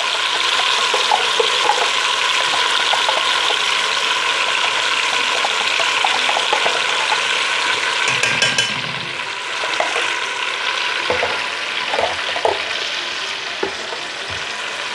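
Garlic and bagoong (shrimp paste) sizzling in hot oil in a wok as they are stirred, with occasional knocks and scrapes of the spatula against the pan. The sizzle eases a little past halfway.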